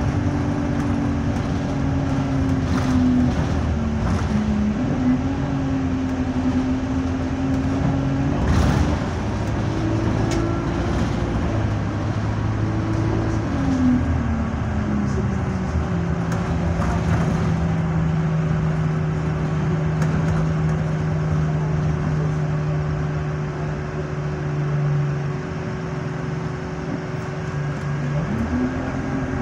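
Alexander Dennis Enviro200 bus's Euro 5 diesel engine and Allison automatic gearbox heard from inside the rear saloon while driving, engine pitch rising and falling with the road for the first dozen seconds, then dropping and holding steady for about ten seconds before climbing again near the end. The gearbox is in limp mode with no kickdown.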